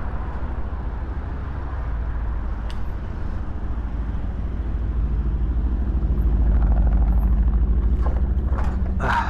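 Wind buffeting the microphone while riding an electric bike, a low fluttering rumble that grows louder in the second half. Near the end a short sharp clatter, like the bike jolting over a bump.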